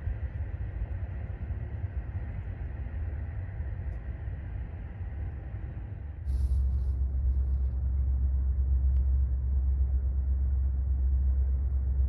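A steady low outdoor rumble with little else over it. It steps up sharply louder about halfway through.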